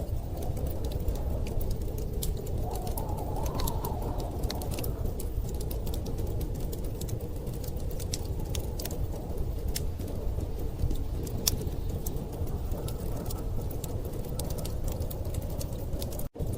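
Wood fire crackling, with scattered sharp pops and ticks, over the steady low rush of blizzard wind that swells briefly a few seconds in. The sound cuts out for an instant near the end.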